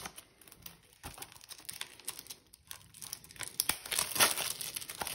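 Clear plastic shrink wrap crinkling and tearing in irregular crackles as it is peeled off a Blu-ray case by hand.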